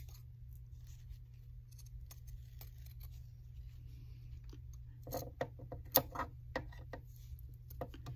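Steel sewing scissors snipping fabric in short, scattered cuts as the seam allowance is trimmed close to the stitching, with a quicker run of louder snips about five to six seconds in.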